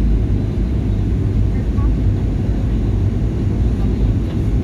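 Steady low rumble of a Boeing 737 airliner in flight, heard from inside the passenger cabin: engine and airflow noise.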